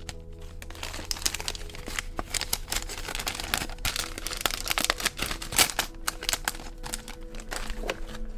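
Stationery packaging crinkling and crackling as it is handled, a dense, irregular run of small crackles.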